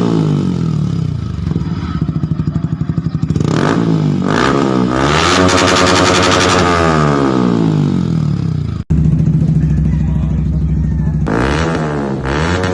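Yamaha R15M's 155 cc single-cylinder engine running through an Akrapovic full-system exhaust, revved while standing. Revs fall back to idle, then come two quick throttle blips, then a longer rev that is held high and drops back to idle. Two more sharp blips come near the end.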